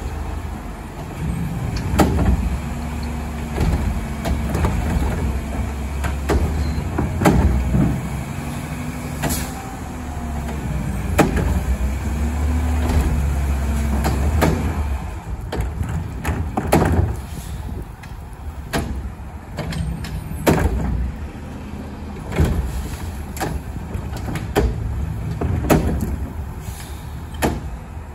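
Garbage truck engine running with a heavy low hum, its speed raised for about the first half and then settling back, while sharp knocks and bangs recur every second or two.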